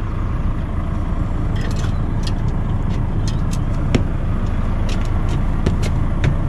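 Lorry's diesel engine idling steadily, with a scattering of sharp light clicks over it.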